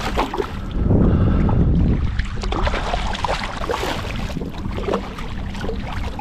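Hooked striped bass splashing and thrashing at the surface beside a kayak, with water sloshing against the hull. A gust of wind rumbles on the microphone about a second in.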